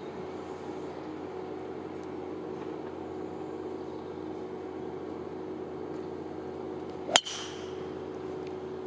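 Golf driver striking a teed-up ball once about seven seconds in, a single sharp crack with a brief ring. A steady low hum runs underneath.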